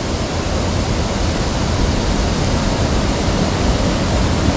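Steady rush of water flowing along a small irrigation ditch.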